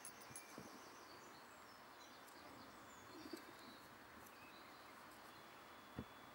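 Near silence: faint bird chirps, with one soft knock near the end.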